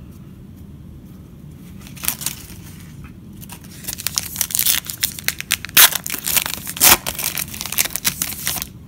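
A trading card pack wrapper being torn open by hand, crinkling and tearing. There is a faint crackle about two seconds in, then it grows into dense crinkling from about four seconds in, with two sharp, loud crackles in the second half.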